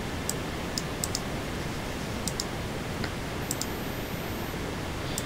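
Computer mouse button clicks, about six sharp clicks, several in quick pairs, over a steady background hiss.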